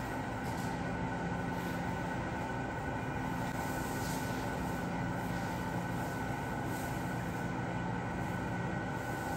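Steady mechanical hum and rumble with a few constant tones, like building machinery running, with faint soft rustles now and then.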